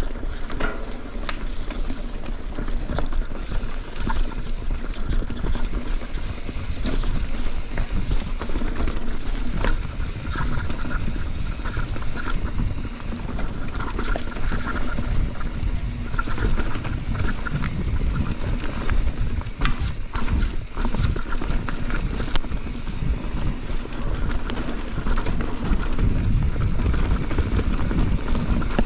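Mountain bike riding a rocky trail: wind rushing over the microphone, with tyres rolling over rocks and the bike rattling in frequent irregular knocks and clicks.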